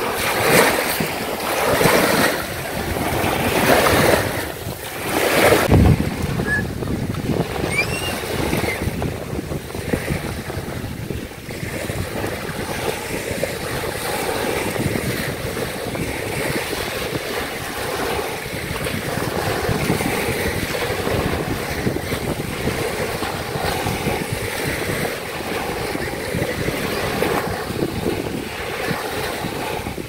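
Small sea waves washing up and draining back over a shell beach, with wind buffeting the microphone. There are several louder surges of surf in the first few seconds, then a steadier wash.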